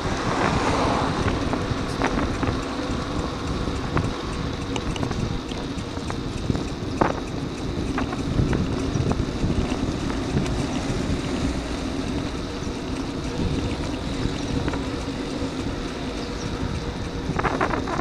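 Wind noise on the microphone of a camera riding on a bicycle, over a steady road rumble, with a few sharp clicks.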